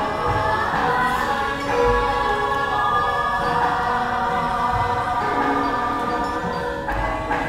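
Javanese gamelan music: a chorus of voices sings long held notes over ringing bronze metallophones, with a few sharp strikes near the end.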